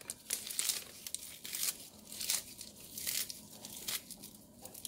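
Fresh spinach leaves being torn and handled by hand over a bowl: a string of short, irregular soft crackles and rustles.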